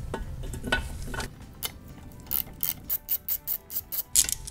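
Ratchet wrench with a 24 mm socket clicking in quick, even strokes, about five clicks a second, as it backs out an engine's oil pressure switch. A few separate knocks of the tool come first.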